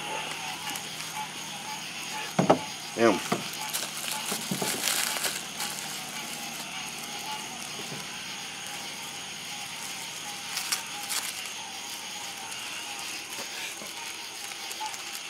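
A small firework fizzing with a brief hiss but no bang, then a few light clicks, over a steady chirring of night insects.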